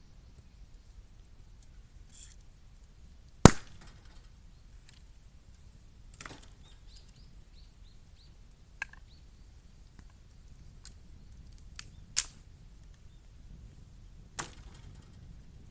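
Bamboo burning in an 18-litre can with the bottom cut out, popping as sections split in the heat. One loud crack comes about three and a half seconds in, then smaller pops and cracks every two or three seconds.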